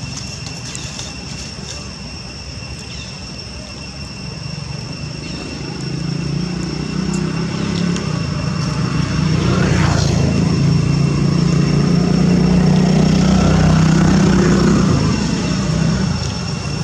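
Engine of a passing motor vehicle: a low drone that swells from about six seconds in, is loudest for several seconds and fades near the end, over a steady high-pitched whine.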